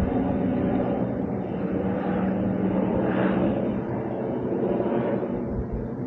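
A steady engine drone with a low, even hum.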